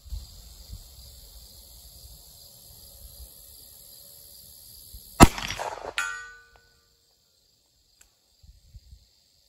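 A single shot from a .44 Magnum Smith & Wesson 629 revolver about five seconds in, followed under a second later by a clang that rings briefly: the bullet striking the steel target 150 yards downrange. Crickets chirp steadily before the shot.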